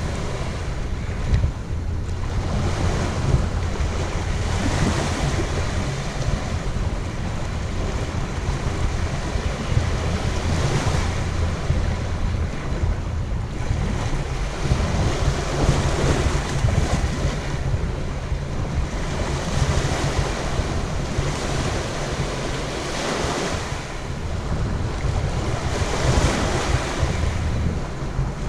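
Waves washing onto a sandy beach, a brighter surge every few seconds, with steady wind rumbling on the microphone underneath.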